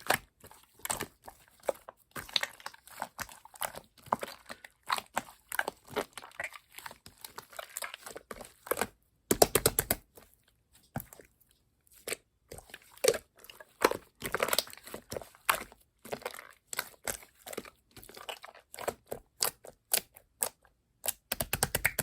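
Slime being squeezed and stretched by hand, making rapid sticky clicks, pops and crackles in irregular bursts. A dense run of popping comes about nine seconds in, followed by a short pause.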